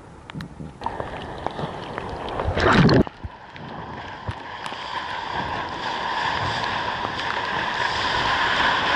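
Whitewater rushing and splashing around a surfer riding broken surf, heard from a camera at water level. A loud surge of water about three seconds in cuts off suddenly, then the rush of foam builds steadily louder.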